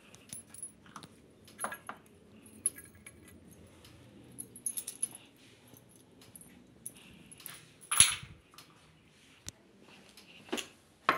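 Hand tools and small metal and plastic parts clicking, jingling and clattering as they are handled and set down on a hard surface. The sharpest clack comes about eight seconds in, with a couple more knocks near the end.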